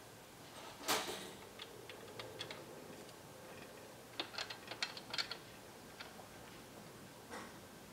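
Light clicks and taps of small metal and plastic parts being handled as a BodyFloat Kinekt suspension seatpost is put back together. There is one louder clack about a second in, then a quick run of sharp clicks around four to five seconds in as the coil spring and shock are worked into the linkage.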